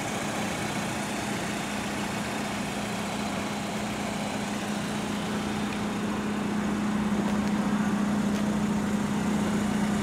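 A car engine idling steadily: a constant low hum under an even rush of noise, growing a little louder over the last few seconds.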